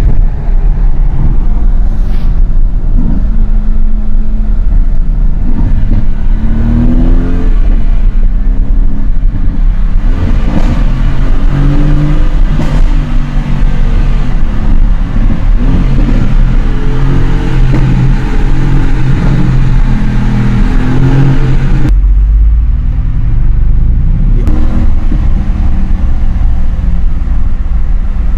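Mercedes-AMG GT S twin-turbo V8 accelerating and revving through the gears, heard from inside the cabin. The engine note climbs and drops with each gear change, and it echoes as the car drives through a road tunnel. The sound shifts abruptly about 22 seconds in.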